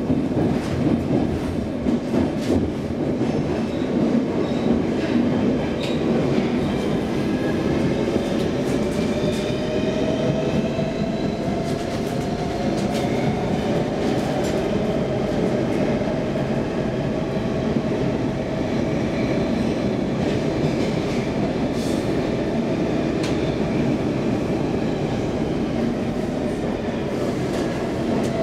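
Stockholm Metro C15 subway car running through a tunnel, heard from inside the car: a steady rumble of wheels on rail, with a whine that rises in pitch and then holds. A few sharp clicks come through in the second half.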